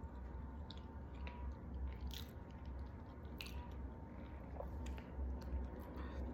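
Someone biting and chewing a walnut chocolate chip cookie, with scattered soft crunches and mouth clicks. The loudest crunches come about two and three and a half seconds in, over a steady low hum.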